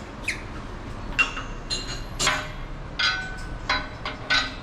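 Metal parts clinking and tapping together, about seven sharp strikes, several of them ringing briefly. The parts are the coilover top plate and bearing being worked on and fitted.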